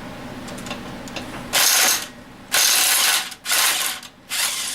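Ratchet wrench clicking in four short runs, loosening fasteners to take apart a small engine.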